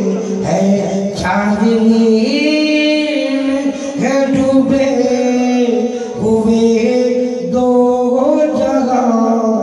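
A man singing a devotional song solo into a microphone, with no instruments. He holds long, drawn-out notes that step up and down in pitch, with short breaks between phrases.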